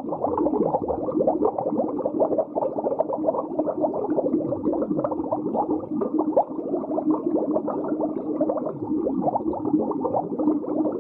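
Muffled underwater sound effect: dense, continuous bubbling, with a low falling whoosh about every four seconds.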